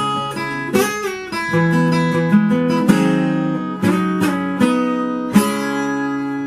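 Acoustic guitar strumming a few spaced chords as the song's closing outro, the final chord near the end left to ring out and fade.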